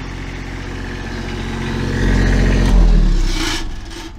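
Truck-mounted generator engine running with its cover off, a steady hum. About three seconds in it shuts down, its pitch falling as the hum dies away within about a second.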